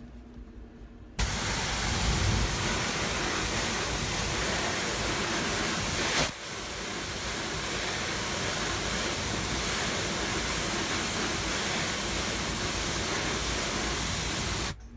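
A hissing jet of pressurised water spray washing the dirt-clogged fins of a truck's air-conditioning evaporator coil. It starts abruptly about a second in, breaks off briefly around six seconds, then runs steadily until it cuts off just before the end.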